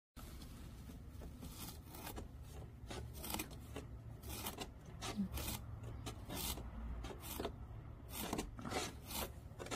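Soft rubbing and scraping with irregular light clicks as a fingertip pushes the minute hand of a wall clock around its face, over a steady low rumble.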